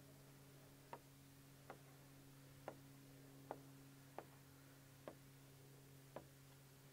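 Near silence: a faint steady hum with a soft tick about once a second.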